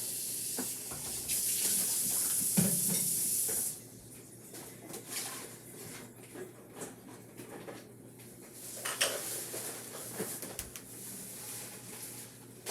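A steady high hiss that stops about four seconds in, followed by scattered light clinks and taps of small hard objects.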